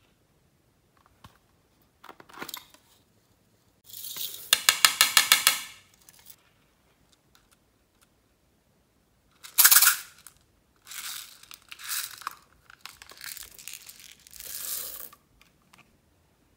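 Sequins and glitter rattling in small plastic cases as they are shaken out onto slime: a fast, even rattle about four seconds in, then a loud short burst and several shorter rattling bursts, with small clicks between.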